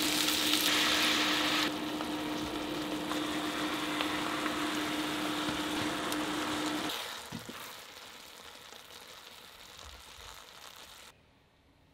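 Chicken thighs and soy-vinegar sauce sizzling and bubbling in a frying pan as the sauce thickens. A steady low hum runs beneath. About seven seconds in the sizzle and hum drop away, leaving a faint simmer until an abrupt cut near the end.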